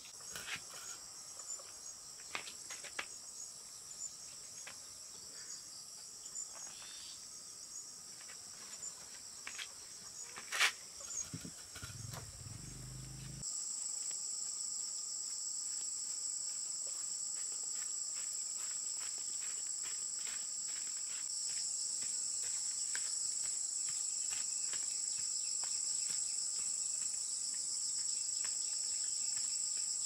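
Insects droning steadily in a high, shrill chorus, with scattered clicks and knocks over it in the first half. The loudest knock comes about ten seconds in, and a brief low rumble follows. A little past the middle the drone jumps abruptly louder and stays steady.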